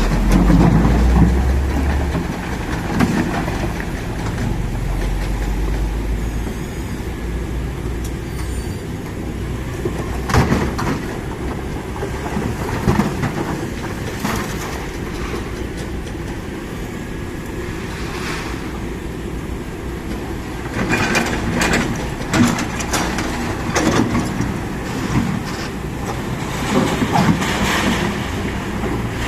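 Kobelco SK200 hydraulic excavator's diesel engine running under load, a heavy low rumble that is strongest for the first few seconds, with scattered clanks and knocks from the working machine, most of them in the second half.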